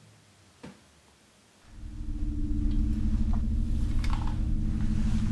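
A short click, then a loud, low, steady drone with several held tones that swells in about two seconds in and holds: a film-score drone.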